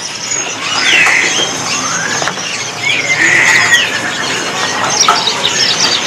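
Many caged birds chirping and calling over one another: short whistles that glide up and down, with squeaky calls in between.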